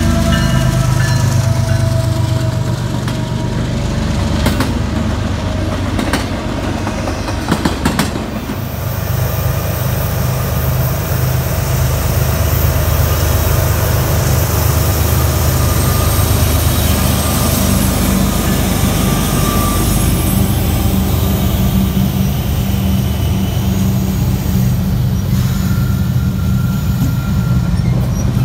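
Freight trains passing close by: first a BNSF diesel locomotive's engine running as it leads a container train past. Then, after a break about eight seconds in, several Union Pacific diesel locomotives approach and pass with a steady low engine drone.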